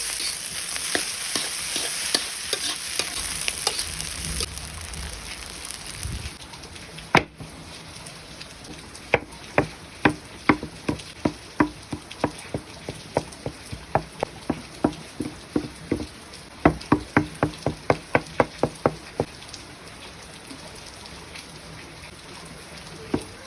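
Food sizzling in a frying pan, dying down after the first few seconds. It is followed by a long run of sharp, regular knocks, about two to four a second, with a pause in the middle.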